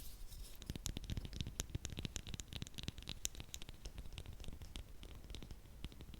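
Close-miked ASMR trigger sounds: a quick, irregular patter of soft clicks and crackles right at the microphone.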